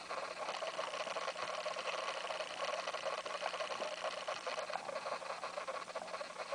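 Quiet room tone: a steady hiss with a faint low hum.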